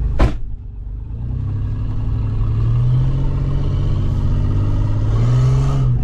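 A minivan's engine heard from inside the cabin as the van pulls away, rising steadily in pitch over several seconds as it accelerates. A sharp knock comes right at the start.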